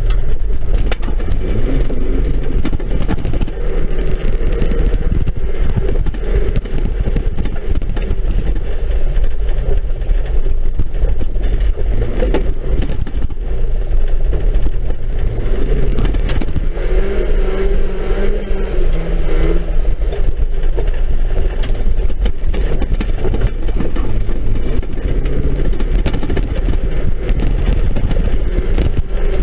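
Banger racing car driving on a dirt track, heard from inside its stripped-out cabin: a loud, steady low rumble of engine and road noise with frequent knocks and rattles from the bare shell. A clearer engine note stands out for a couple of seconds about two-thirds of the way through.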